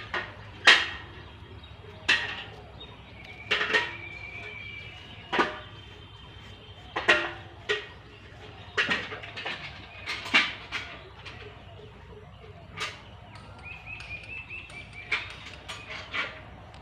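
A bucket being hauled up a well by hand on a rope over a metal pulley: irregular knocks and clacks as the rope is pulled in, about one a second, with a few short high-pitched squeaks.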